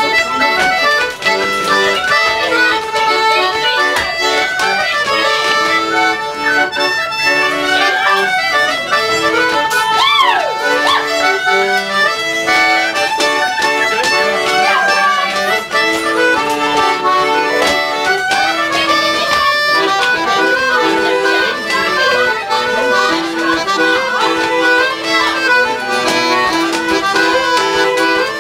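Accordion and fiddle playing a traditional dance tune for a rapper sword dance.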